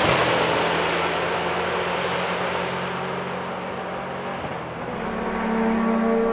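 A sports-prototype race car's engine fading into the distance after passing at speed. About five seconds in, another prototype's engine comes in at steady revs and grows louder as it approaches.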